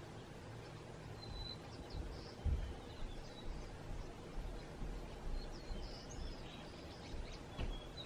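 Small songbirds chirping in short, high calls scattered through, over a low rumble with a few brief low thumps.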